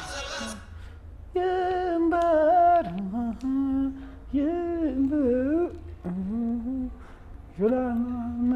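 A person humming a tune: a string of held, gliding notes in short phrases with brief pauses between them.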